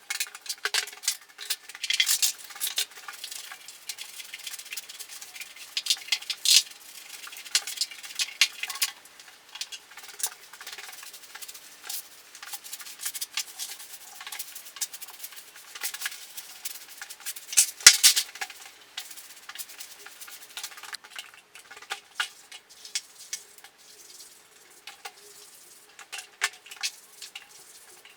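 Dry scraping and rustling of cleaning up after wallpaper stripping, with paper scraps and grit being scraped and swept from bare walls and floor, and many irregular light clicks and scratches. It grows sparser near the end.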